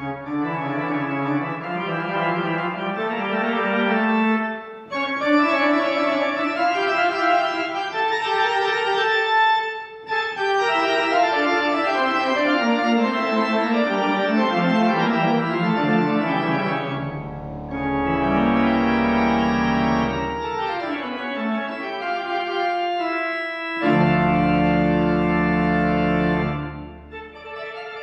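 Organ playing sustained chords in phrases, with short breaks between them and deep bass notes sounding under the later phrases.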